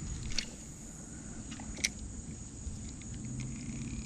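Steady high-pitched chorus of insects, with two sharp clicks, one about a third of a second in and a louder one a little under two seconds in.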